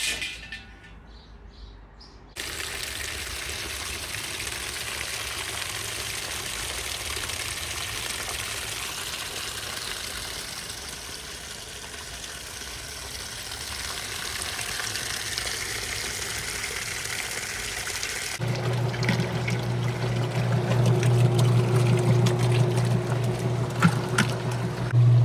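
Water pouring and splashing inside a Whirlpool washing machine, starting suddenly a couple of seconds in. About two thirds of the way through, a steady low motor hum starts up under the running water.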